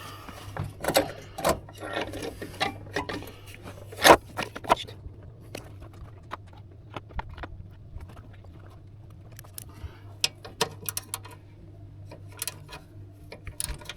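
Hand tools and metal parts clicking and knocking irregularly as car engine components are unbolted and handled, the loudest knock about four seconds in, over a steady low hum.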